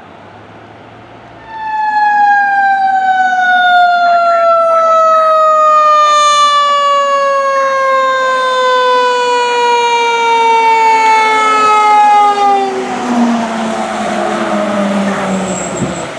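Fire engine's Federal Q mechanical siren starting loud about a second and a half in and slowly winding down in pitch for about eleven seconds. Then the 2015 Sutphen pumper's engine and tyres are heard as it drives past.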